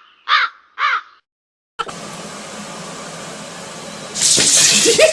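An animal gives short, harsh, rising-and-falling calls, twice in quick succession after the tail of a first. About two seconds in, a steady hiss takes over and grows louder near the end.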